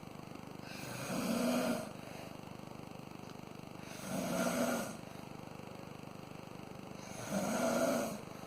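A person snoring: three snores about three seconds apart, each lasting about a second.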